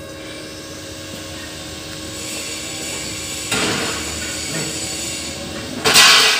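Square steel tube frame being shifted on a concrete floor: a sudden scraping noise about three and a half seconds in and a louder, harsher scrape near the end, over a steady electrical hum.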